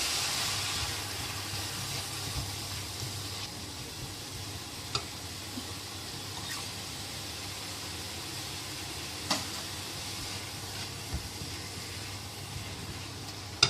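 Chicken, ginger and mushroom stir-fry sizzling in a hot pan just after a splash of water, the hiss of steam dying down over the first few seconds to a low steady sizzle. A few sharp clicks come through at intervals.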